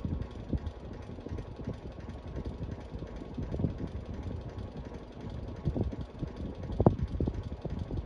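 Bahama Hugger 52-inch ceiling fan running, with a steady low rumble of motor and moving air. Irregular soft knocks and ticks come through it, the loudest about seven seconds in.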